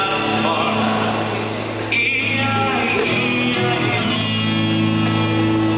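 Acoustic guitar strumming chords, with voices over it. A sudden louder sound cuts in about two seconds in.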